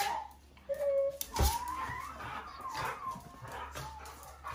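Pet monkey giving short, high whimpering calls, one of them a sliding squeal, with a single thump about a second and a half in.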